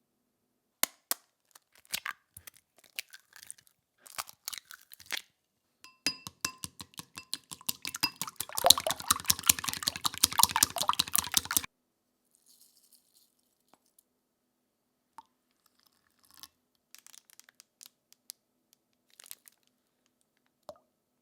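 Eggs cracked and beaten with chopsticks in a glass bowl: a few sharp taps and cracks, then about six seconds of fast, rhythmic clicking strokes of chopsticks against the bowl that stop abruptly. A few scattered small clinks follow.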